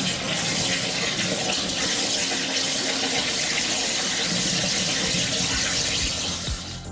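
Waterjet cutter's high-pressure jet hissing steadily as it cuts through sheet metal, with no let-up. Music with a thudding beat cuts in at the very end.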